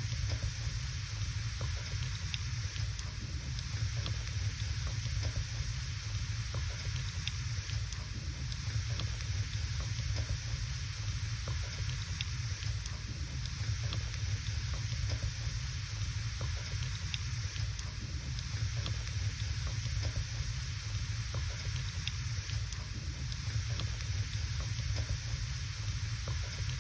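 Wood burning in a fireplace: a steady low rumble and hiss with scattered small crackles and pops.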